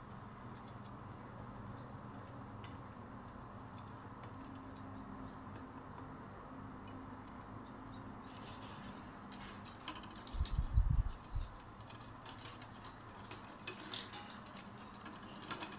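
Thin bamboo strips clicking and rustling as they are woven by hand, the light clicks coming more often in the second half. A brief low thudding about ten seconds in is the loudest sound.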